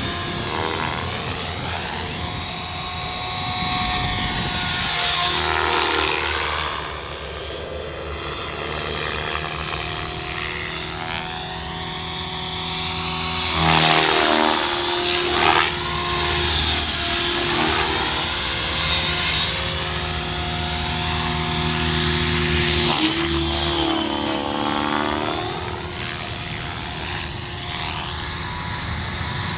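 Align T-Rex 550 electric radio-controlled helicopter flying aerobatics. Its rotor whir and motor whine sweep up and down in pitch as it swoops and passes, over a steady high whine.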